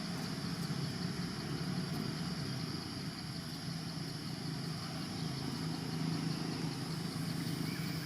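A steady low mechanical hum, like an engine running at idle, unchanging throughout.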